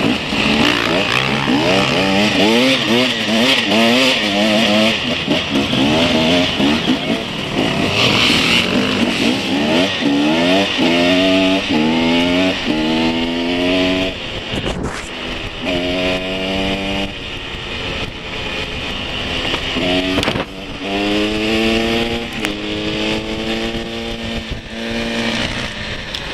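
Enduro motorcycle engine heard from on board, revs wavering over rough ground and then climbing again and again as it accelerates through the gears. Wind noise hisses over the microphone throughout.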